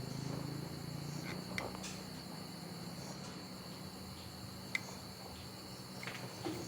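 Insects trilling steadily in a high, unbroken tone over a low steady hum, with a few faint clicks.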